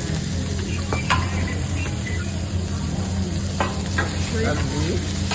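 Food sizzling on a hibachi teppanyaki griddle, with a few sharp metal clinks of the chef's spatula on the hot plate over a steady low hum.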